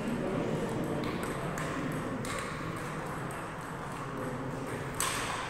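Table tennis ball being struck by paddles and bouncing on the table in a rally: a few sharp clicks at uneven spacing, the loudest near the end.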